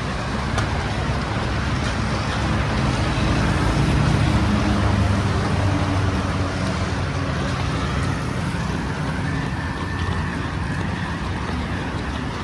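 Steady low rumble of road traffic, swelling about four to six seconds in.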